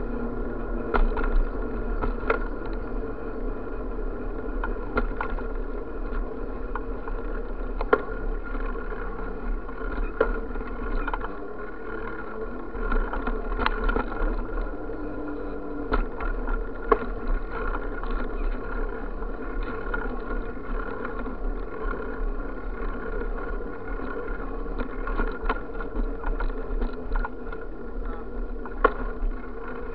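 Riding a bicycle over cracked pavement and a concrete sidewalk: steady rolling and wind noise with a low rumble, broken every second or two by short sharp knocks as the wheels hit cracks and sidewalk joints.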